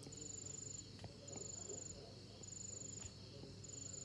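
A cricket chirping faintly: short high-pitched pulsed trills of about half a second, repeating roughly once a second.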